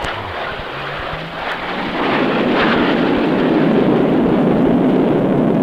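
Twin-engine jet aircraft flying low overhead with its gear down, a loud rushing jet engine noise that swells about two seconds in as it passes.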